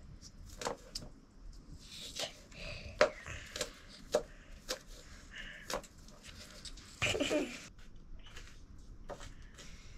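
Irregular light knocks and clicks of things being handled, with brief faint snatches of voice and a louder burst about seven seconds in.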